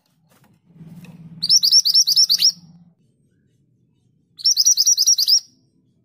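A caged minivet singing two short, rapid trills of repeated high notes, each about a second long, with about two seconds between them.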